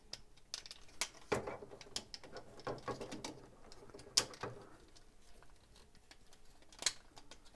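Plastic parts of a transforming robot figure clicking, tapping and rubbing as panels are slid and tabbed into place by hand, with a sharper click about four seconds in and another near the end.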